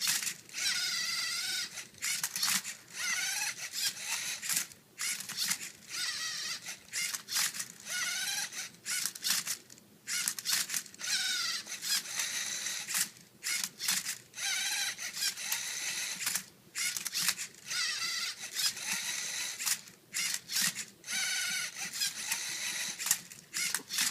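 Lego Mindstorms motors of a MindCuber Rubik's Cube-solving robot whirring in short bursts about once a second, the whine rising and falling in pitch with each move as the turntable spins and the arm tips the cube. Plastic clacks come between moves.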